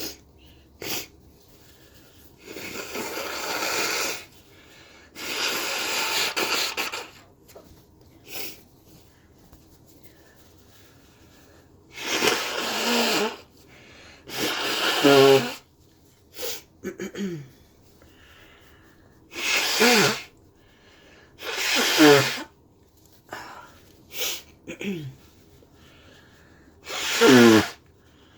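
A person with a cold sneezing repeatedly: about half a dozen sneezes in the second half, each with a voiced cry that falls in pitch. Before them come two long breathy rushes of air.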